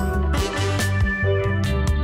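Background music with bass and drums keeping a steady beat.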